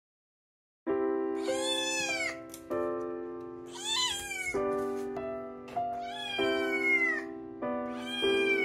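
Fold-eared Munchkin cat meowing four times, starting about a second in, each meow rising and then falling in pitch, over light background music.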